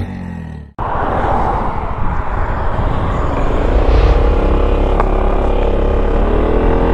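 Yamaha XMAX 300 scooter's single-cylinder engine running under way, heard through a helmet-mounted microphone with wind and road rumble; the engine note climbs slowly in pitch as it picks up speed. About a second in there is a sharp momentary dropout before the riding sound starts.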